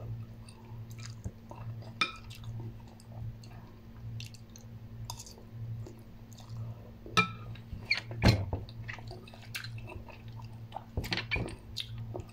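A person chewing spoonfuls of instant noodles, with many small wet mouth clicks and smacks and a few sharper clicks, loudest a little past the middle. A steady low hum runs underneath.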